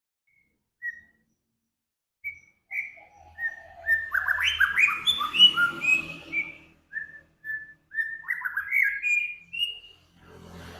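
A songbird sings clear whistled notes. A few spaced single whistles lead into a quick run of overlapping rising and falling whistles, then a second run that climbs in pitch. A soft, noisy sound comes near the end.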